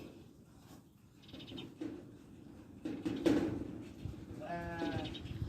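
Goats bleating, with one clear, drawn bleat about four and a half seconds in and a few shorter, higher calls before it.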